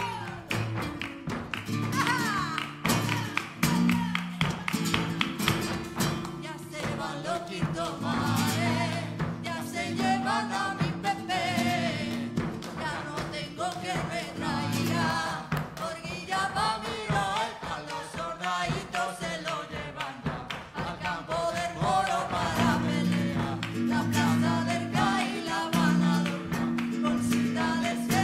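Live flamenco music: a voice singing in long, wavering ornamented lines over flamenco guitar, with palmas hand-clapping keeping the rhythm.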